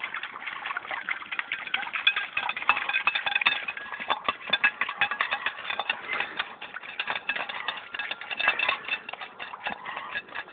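A dog licking dirty dishes: a rapid, irregular stream of small wet clicks and taps from its tongue on the plates.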